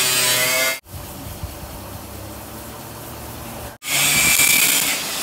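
A power tool cutting or grinding, in two stretches broken off abruptly by edits, with a quieter low hum between them.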